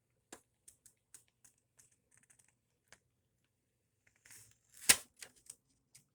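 Scattered light clicks and rustles of small objects and packaging being handled, with one sharp knock about five seconds in.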